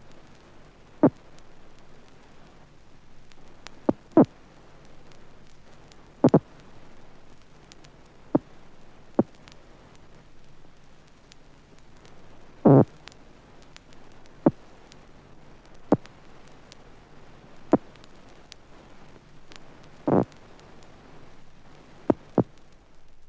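Defensive electric discharges of an electric catfish (Malapterurus electricus), picked up as bioelectric signals and played back as sound. They come as irregular sharp clicks and pops, some in quick pairs, with two longer crackling bursts, over a steady hiss.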